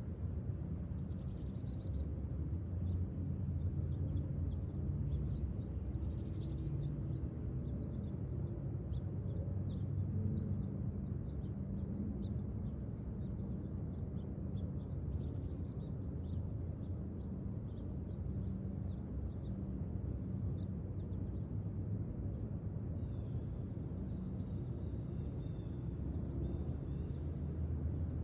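Many small birds chirping in short high notes, over a steady low rumble. A faint, longer high call comes in near the end.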